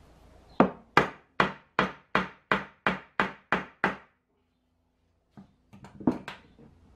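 Ten evenly spaced knocks on wood, about three a second, as a wooden cot post is knocked down to seat its joint during a test fit. After a short break, a few lighter knocks and clatters from tools handled on a workbench.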